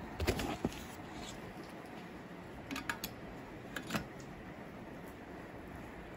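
Light clicks and taps of handling, a cluster in the first second and a few more around three and four seconds in, over a steady fan-like hum.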